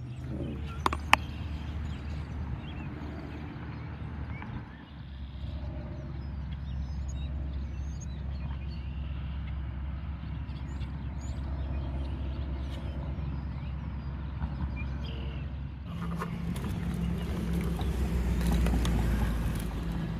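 Outdoor ambience: a steady low rumble with faint, high bird chirps now and then, and a short click about a second in. About 16 s in, a low steady hum joins and the rumble grows louder.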